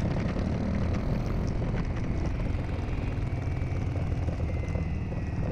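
Single-cylinder dual-sport motorcycle engine running, a steady low rumble under the rider's microphone.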